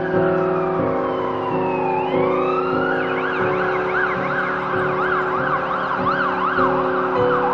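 Emergency vehicle siren: a slow wail falling and then rising, switching about three seconds in to a fast yelp that sweeps up and down about three times a second. Background music plays under it.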